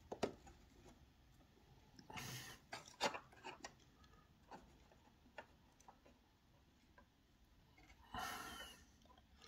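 Near-silent handling of a plastic scale model on a tabletop as it is turned around: scattered faint clicks and light knocks, with two short soft rushes of noise, one about two seconds in and one near the end.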